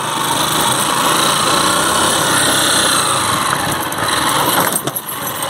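Small motorcycle engine running steadily under way, with a brief dip in the sound near the end.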